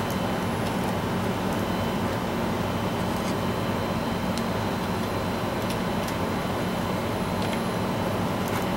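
Steady low background hum, with a few faint light clicks of plastic as a small CPU heatsink and fan is handled and its push pins are worked into place.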